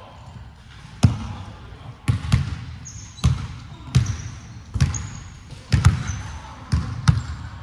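Basketballs bouncing on a wooden indoor court, about ten irregular thumps that echo in the large hall, with a few brief high sneaker squeaks on the floor.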